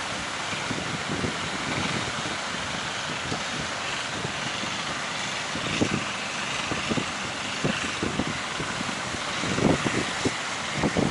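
Steady rush of breaking sea surf, with wind buffeting the microphone in several short gusts, most of them near the end.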